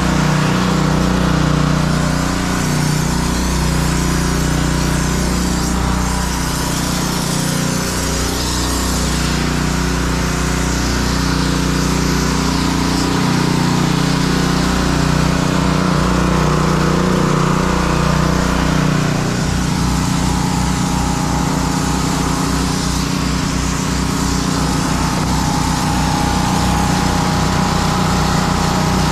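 Gas pressure washers running steadily, their small engines droning under the hiss of the wand spraying water onto the wooden deck boards. About two-thirds of the way in, the engine sound turns to a faster, evenly pulsing beat.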